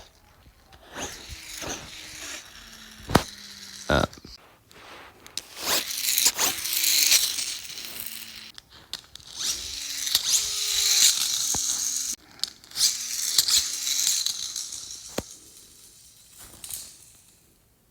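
Wind-up Lego motorcycle: a few clicks and knocks as it is handled and wound, then the whirring rattle of its spring-driven gears and wheels as it runs for several seconds, dying away near the end.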